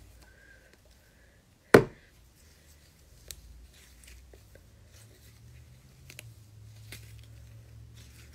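Fluffy slime squished and stretched between the hands, with faint scattered crackles and small pops. One sharp, loud snap stands out about two seconds in.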